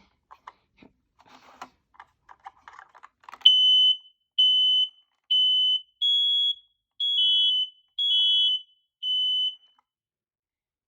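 Family Gard FG200B smoke alarm sounding on test: seven loud, high-pitched beeps, about one a second, starting about three and a half seconds in. Faint handling clicks come before the beeps.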